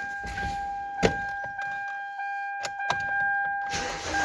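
Hyundai Elantra being started: a steady high electronic tone and a few sharp clicks as the ignition is switched on, then the four-cylinder engine cranks and catches right at the end.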